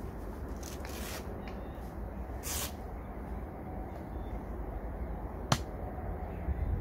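Swishes of a TFG Airflow Mark II bivvy's fabric being handled as it is set up, and a single sharp click about five and a half seconds in, over a steady low wind rumble on the microphone.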